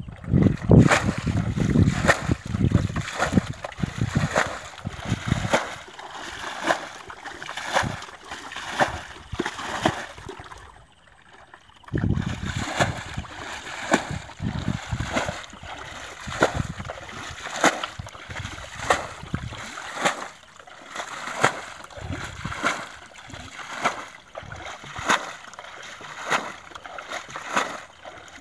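Muddy water being bailed out of a shallow ditch pool with a plastic bucket: repeated scoop-and-throw splashes, roughly one a second, with a brief lull about eleven seconds in.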